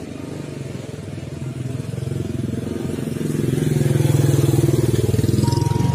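Small motor scooter running at low speed as it approaches and passes close by, growing louder to a peak about four seconds in and then starting to fade.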